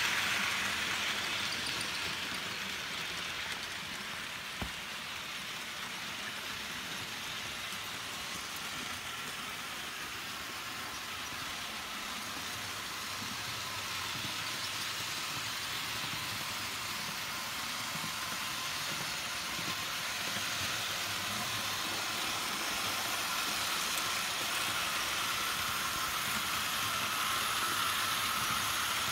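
HO-scale model train, a Märklin V188 diesel locomotive and its string of freight cars, running on the layout's track: a steady rushing hiss of wheels on the rails with a faint motor hum. It is loudest at the start as the cars pass close, fades through the middle and builds again near the end as the train comes back around; one sharp click about four and a half seconds in.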